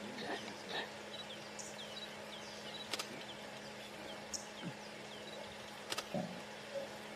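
A lion retching, with a few soft, low heaves, over the steady hum of an idling engine. Small birds chirp throughout, and there are two sharp clicks about three seconds apart.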